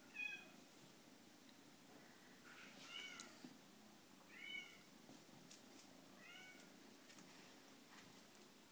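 Eight-week-old seal lynx marble Bengal kitten giving four short, high-pitched mews spread over several seconds, each rising then falling in pitch, with a few faint clicks between them.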